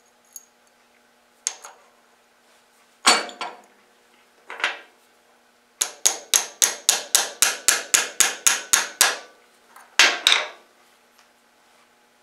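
Claw hammer tapping a small pin into an aluminium disc held in a bench vise. A few separate blows come first, then a quick run of about fifteen even taps at roughly five a second, then two more blows near the end.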